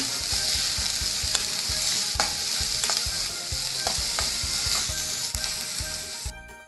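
Chopped onions sizzling in hot sunflower oil in a steel pan, stirred with a metal spoon that clicks and scrapes against the pan a few times. The onions are being cooked only until they wilt, not browned. The sound dips briefly near the end.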